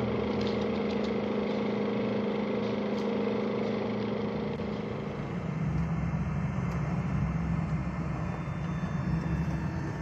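A steady mechanical hum, which changes about five seconds in to the low drone of a Ford van's engine heard from inside the cab as the van drives slowly.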